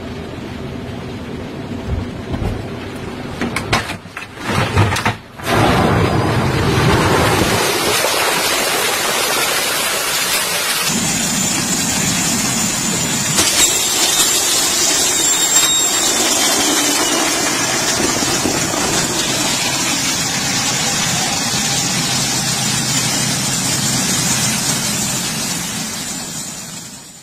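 Airliner evacuation slide deploying: a few clunks from the door and slide pack, then, about five seconds in, a sudden loud, steady rushing hiss of the slide inflating, with a thin high whistle over it.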